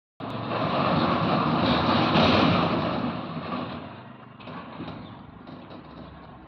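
Stainless steel sliding gate rolling along its track, a loud rumble that fades after about three seconds as the gate slows.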